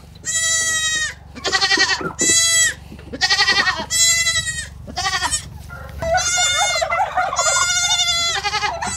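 Goats bleating over and over: about nine high-pitched bleats in a row with short gaps between them, some of them wavering.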